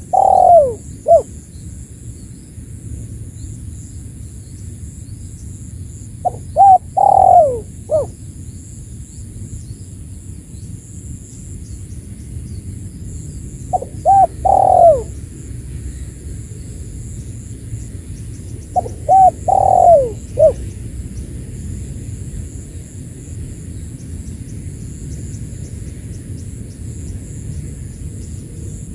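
Spotted dove (tekukur) cooing its lure call, four phrases about six seconds apart. Each phrase is a couple of short notes, then a longer drawn coo and a short closing note. A steady high hiss runs underneath.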